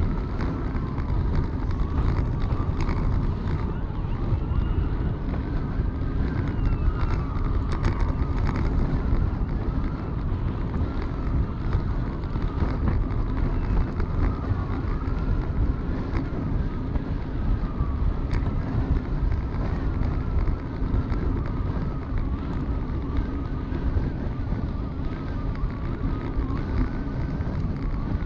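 Steady wind rumble on the microphone of a bicycle being ridden at speed, with faint wavering whistling tones above it.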